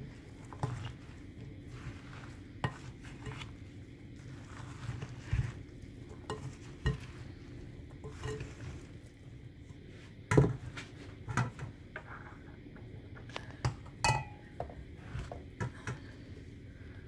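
A spatula stirring and folding gram flour into chopped vegetables in a glass bowl: soft scraping with irregular taps and knocks against the glass, the sharpest about ten seconds in and again about fourteen seconds in.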